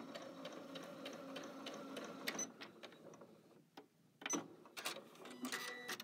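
Janome Skyline S7 sewing machine stitching slowly with a steady hum and about three needle ticks a second, stopping a little over two seconds in. Scattered clicks and knocks follow, with a brief pitched whir near the end.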